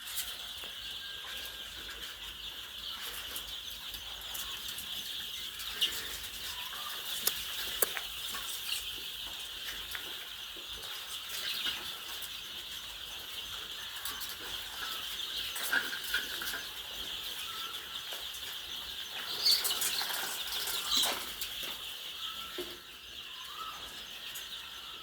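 A flock of chickens making a steady din of many overlapping calls, with scattered single clucks and sharp clicks or knocks now and then.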